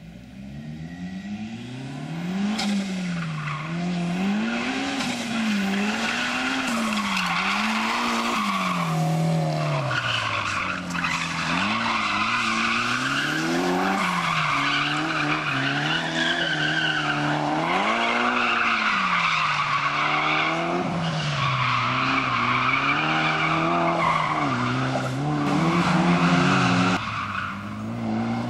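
A competition car driven hard around a tight cone course: its engine revs rise and fall over and over, one swing every second or two, with tyres squealing through the turns. It grows louder over the first couple of seconds and is at its loudest near the end.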